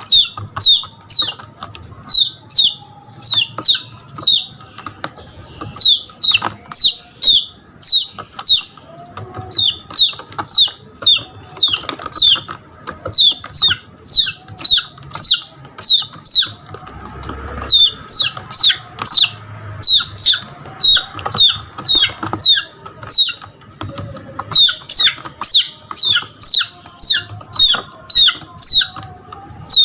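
Red junglefowl chick giving high, falling distress peeps, about three a second in long runs with brief pauses: the call of a lost chick crying for its mother.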